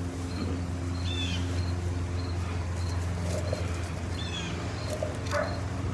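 A small bird chirps a few times over a steady low hum, with a faint high tone repeating about twice a second.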